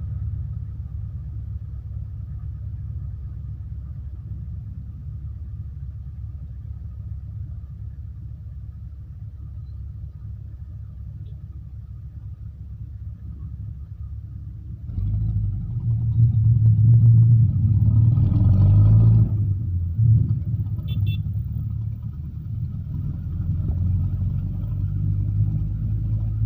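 Low, steady rumble of the engine of the vehicle being ridden, idling while stopped in traffic. About halfway through it suddenly grows louder and stays up for a few seconds as the vehicle pulls away, then settles to a lower running rumble.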